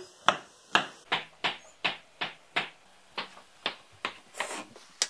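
Kitchen knife slicing button mushrooms on a wooden chopping board: a steady run of sharp taps, about two or three a second.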